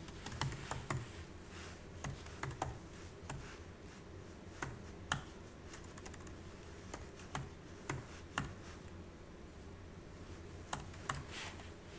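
Computer keyboard keys clicking as text is typed, in short irregular bursts of keystrokes with pauses between them.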